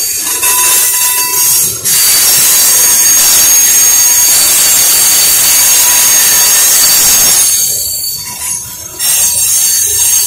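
A freight train's tank cars rolling past close by, their steel wheels squealing on the rails in a loud continuous screech. It eases briefly about eight seconds in, then picks up again.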